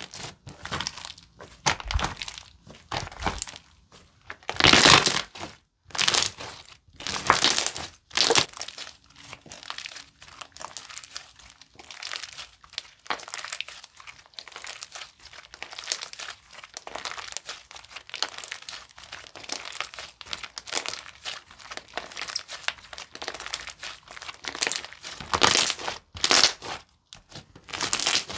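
A flow-type slime made with Elmer's glue being squished, stretched and poked by hand. It makes sticky clicking and crackling noises in irregular bursts, the loudest about five and eight seconds in.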